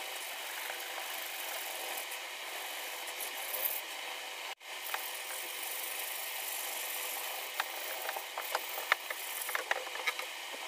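Sandpaper rubbed by hand over the bare willow blade of a cricket bat, making a steady scratchy hiss, with a run of light clicks and ticks in the second half.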